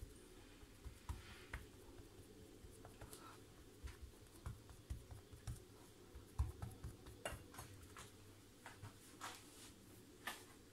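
Faint, scattered soft taps and thumps over near silence: hands pressing pastry dough down around the filling on a granite worktop.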